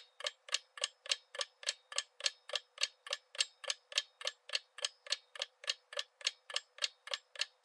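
Clock-ticking sound effect for a quiz countdown timer: steady, even ticks at about three and a half a second, marking the seconds left to answer.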